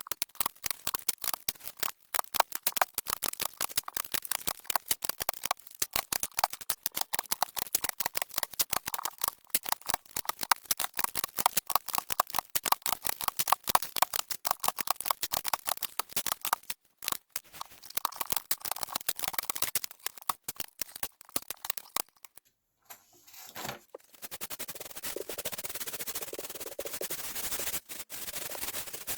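Plastic keys of an HP SK-2502C membrane keyboard clattering in a rapid, dense run of clicks, several a second. After a brief pause near the end, a steadier scraping or rubbing sound takes over.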